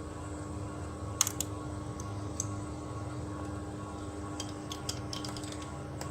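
Haier inverter air conditioner running its auto-clean cycle: a steady hum with scattered sharp clicks and ticks, a few about a second in and a cluster near the end.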